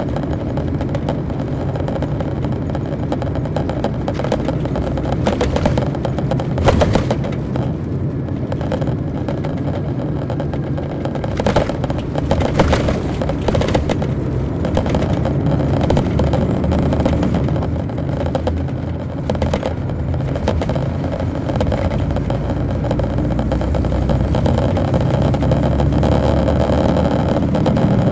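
Detroit Diesel Series 60 diesel engine of a 2002 MCI D4500 coach, heard from inside the cabin as the bus drives: a steady low drone with brief rattles and knocks from the body about a quarter of the way in and again around the middle, growing slightly louder in the last few seconds.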